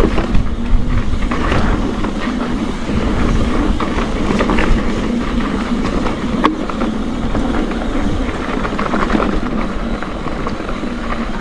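Mountain bike rolling fast down a dirt flow trail: tyre rumble and wind buffeting the microphone, with a steady clatter of the bike rattling over bumps.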